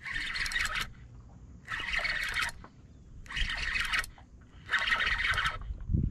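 Fishing reel being cranked in short bursts, about five runs of reeling a second and a half apart, as the rod is pumped and line is gained on a hooked striped bass.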